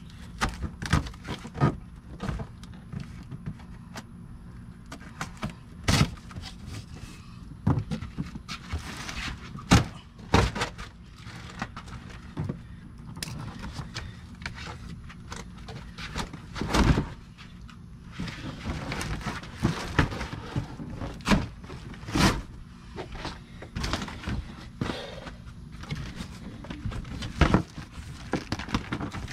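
Large cardboard engine box being opened and unpacked by hand: flaps bending and scraping, with irregular knocks and thunks as the box and its packing are handled.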